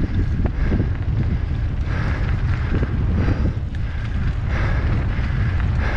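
Heavy wind buffeting on a helmet-mounted action camera's microphone during a fast mountain-bike descent on a dirt trail, with scattered clicks and rattles from the bike over the rough ground.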